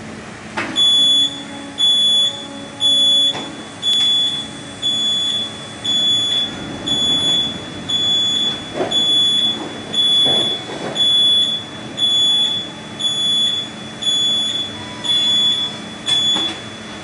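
Motion-warning beeper on an automated greenhouse bench-transport machine, giving a high beep about once a second while the machine shifts a rolling plant bench, over a steady hum. The beeping stops near the end.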